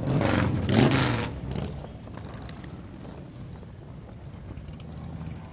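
Touring motorcycles riding past one after another. The nearest one passes loudly about a second in, then the engine sound drops to a steadier, quieter running of the bikes further back in the line.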